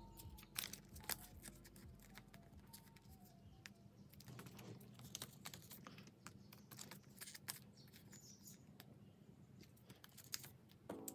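Thin plastic card sleeves rustling and crinkling as photocards are slid in and out of them by hand, with many light clicks and taps as the sleeves and cards are handled and set down.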